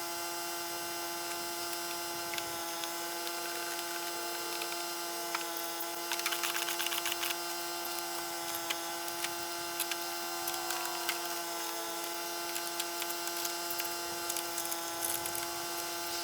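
A steady hum made of several fixed tones, with scattered light clicks and taps of small parts being handled, most of them about six to seven and a half seconds in.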